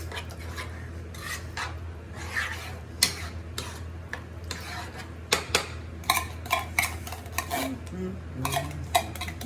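A utensil stirring a thick, creamy chicken pot pie filling in a pan, scraping and clinking against the pan. The clinks come quicker and sharper in the second half.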